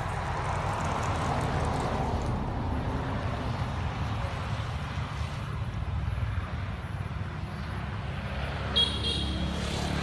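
Steady low outdoor rumble, with a brief high-pitched squeak a little before the end.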